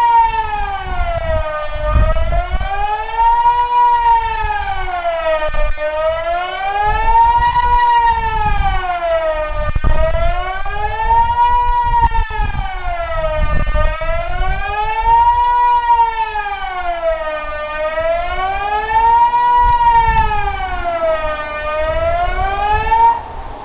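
Kockum Sonic Delta electronic civil-defence siren sounding the Swiss general alarm: a loud tone that rises and falls smoothly, about one full cycle every four seconds. It cuts off suddenly near the end, which is the close of the one-minute alarm.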